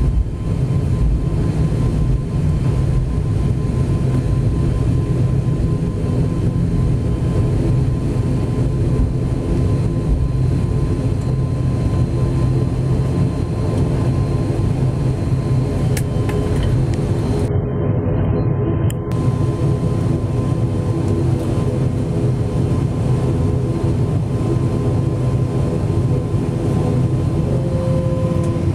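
High-wing turboprop airliner's engines running steadily, heard from inside the cabin as the plane taxis on the runway: a constant low drone with a faint high whine over it.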